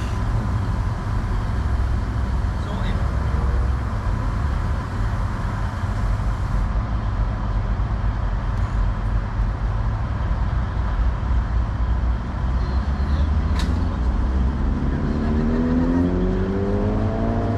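Diesel passenger train's underfloor engine idling with a steady low rumble, then revving up with a rising tone near the end as it powers up to move off.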